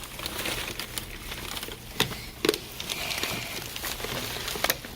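Handling noises from toys being picked up and moved: light rustling with a few sharp knocks, one about two seconds in, another half a second later and one near the end.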